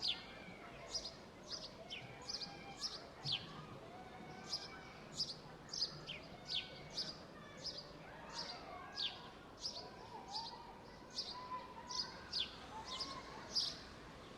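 Birds chirping: short, high, downward-sliding chirps repeated about twice a second, over a faint outdoor background.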